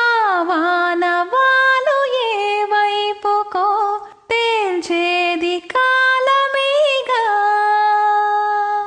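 A woman's voice singing a slow melody in long held notes with gliding ornaments, with no other instrument showing, and a brief break about four seconds in.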